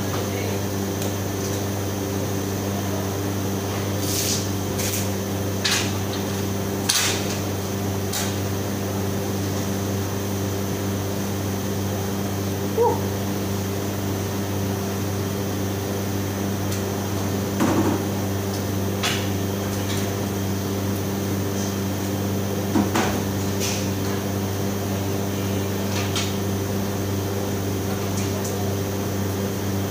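Steady mechanical hum of commercial kitchen refrigerators and extraction equipment, with scattered short knocks and clicks of doors and equipment being handled.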